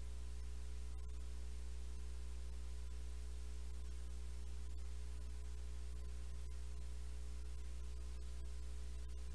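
Steady electrical mains hum with a buzz of evenly spaced overtones, over a faint even hiss.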